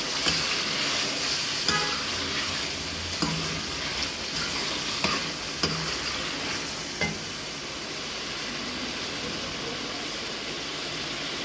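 Mutton liver masala sizzling in hot oil while a spoon stirs it, knocking against the pan every second or two for the first seven seconds or so, then steady sizzling. This is the bhunai stage, frying the spices into the liver.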